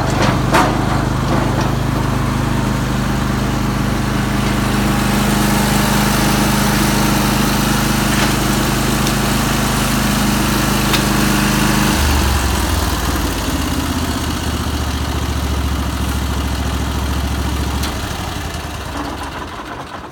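The 35 hp Briggs & Stratton Vanguard V-twin engine on a branch logger, running steadily at speed, with a few sharp knocks in the first second. About twelve seconds in it drops to a lower, slower idle. Near the end it winds down and stops.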